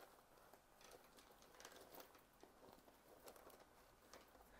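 Faint handling noise: soft rustling and light taps as a phone in a plastic case is pushed into a soft quilted lambskin shoulder bag.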